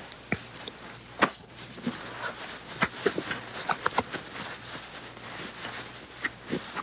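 Handling noise from a hand-held phone: faint, irregular clicks and rustles over a low steady hum.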